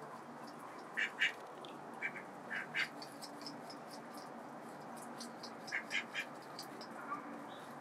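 White domestic ducks giving short quacks in quick little clusters: a pair about a second in, several more between two and three seconds, and another group near six seconds.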